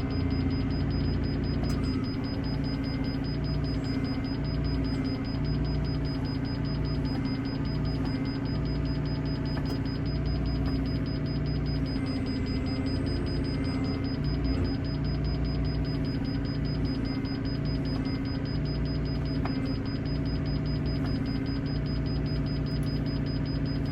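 Excavator engine running steadily with a low hum that swells and fades about once a second, and a thin steady high-pitched tone over it.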